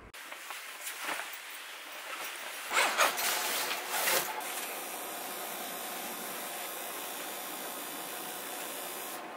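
Fabric rustling and scuffing as a folded camping cot in its black sack is stuffed into a tan duffel bag, loudest about three seconds in and again just after four seconds. After that a steady hiss.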